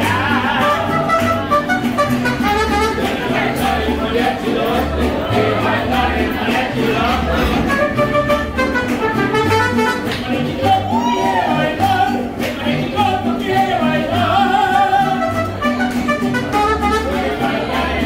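Live mariachi band playing: trumpet and singing over strummed guitars and the plucked bass of a guitarrón.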